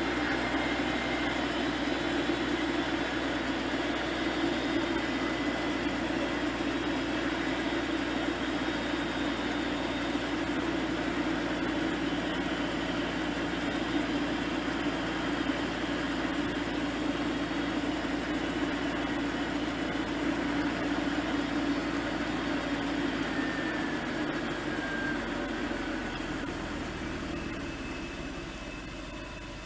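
1989 Volvo 240 engine running steadily as the car moves slowly, with a faint whine over the engine note. Near the end come a few short, sharp high-pitched squeaks, and the engine sound then dies away as it is switched off.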